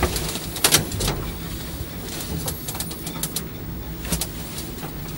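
Lift car travelling: a steady low hum with a few light clicks.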